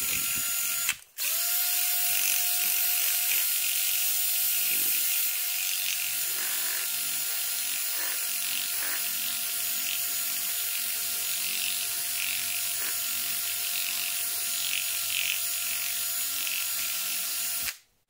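Milwaukee cordless drill spinning a slotted rod with emery cloth inside a Husqvarna 55 chainsaw cylinder bore, the cloth turning against the bore to clean off aluminum transfer, over a steady motor whine. The drill stops briefly about a second in, then runs steadily until it stops just before the end.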